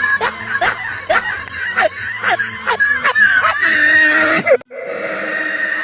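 An edited, pitch-altered laugh meme sound effect: a run of 'ha' syllables, about two to three a second, that cuts off suddenly near the end and gives way to a different, steadier processed sound.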